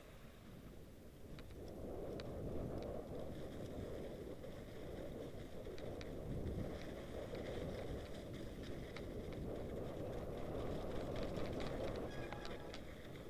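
Mountain bike riding down a snow-covered trail: a steady low rushing noise of the tyres rolling through snow, louder from about two seconds in, with scattered clicks and rattles from the bike. Music fades in near the end.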